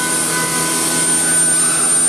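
Woodworking machinery running steadily with a loud whirring noise, a constant high whine and fainter mid tones that come and go.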